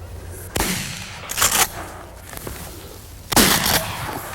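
Shotgun shots fired at passing doves: a blast about half a second in, another around a second and a half, and the loudest just over three seconds in, each with a short ring-off. The shots miss because the shooter did not lead the birds enough.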